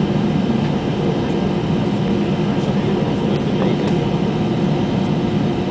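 Steady cabin noise inside an Airbus A320: the even hum of its jet engines and air system, heard from a forward window seat, with a few faint clicks.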